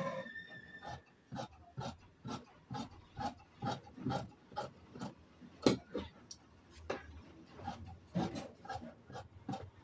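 Large tailor's shears cutting through cloth laid on a table: a steady run of crisp snips, about two a second, as the blades close stroke after stroke along a cutting line.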